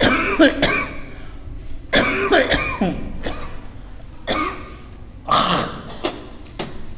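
A man coughing repeatedly in a run of separate, loud coughs, about five or six fits a second or two apart.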